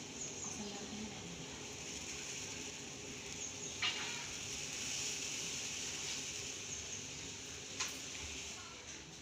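Steady hiss of a pot of spiced tea heating on a gas stove, with two light clicks, about four seconds in and again near the end.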